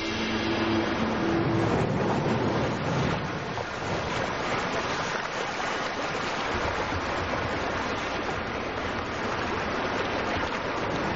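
Steady rush of ocean surf, with the tail of background music fading out in the first two seconds.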